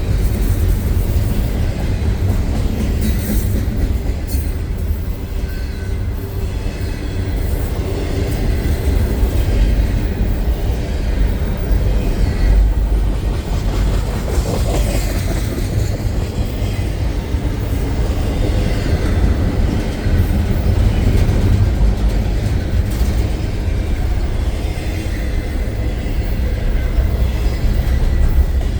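The cars of a CN intermodal freight train roll past at low speed, with a steady heavy rumble of wheels on rail and some clickety-clack over the joints.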